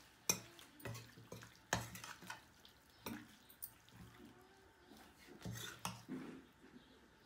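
Metal spatula stirring and scraping cooked mutton blood fry in a steel karahi, knocking against the pan's sides in a few sharp, irregular clanks.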